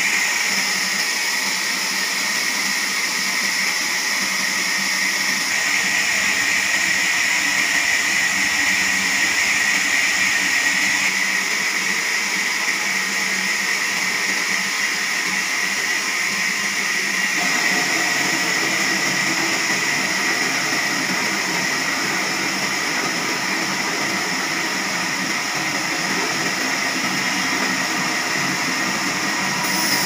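Large horizontal band sawmill running steadily, its blade sawing through a log on the carriage. The sound changes a little past halfway, with more lower-pitched noise after that.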